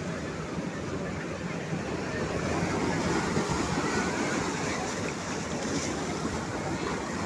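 Sea waves breaking and washing on a beach: a steady rushing surf that swells a little in the middle.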